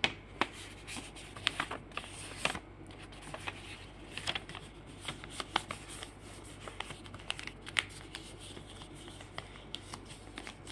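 A sheet of white paper being folded and refolded by hand, the creases pressed down: a run of irregular soft paper crackles and rustles over a faint low hum.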